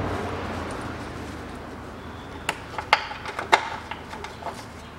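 Plastic air filter housing being handled and seated in a car's engine bay: a few sharp clicks and knocks between about two and a half and three and a half seconds in, with lighter taps after. A low rumble fades away over the first second or two.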